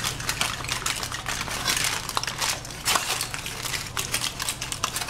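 Aluminium foil being folded and crimped around a fish fillet, an irregular run of crinkling and crackling.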